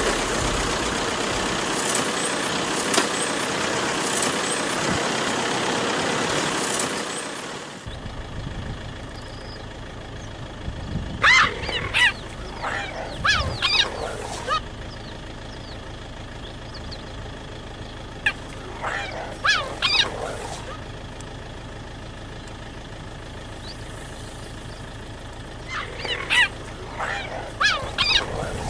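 A loud steady rushing noise for about the first eight seconds. After it stops there is a low steady hum, and over it come three bouts of quick, high, bird-like chirping calls from cheetahs, rising and falling in pitch.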